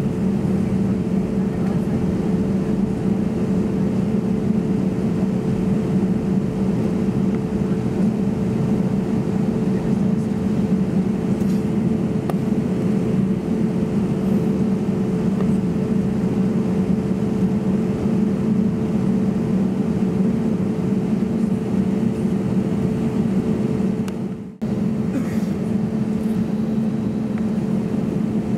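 Steady cabin drone of an Airbus A320neo with CFM LEAP-1A engines running, a constant low hum over rushing air noise, with a brief drop-out near the end.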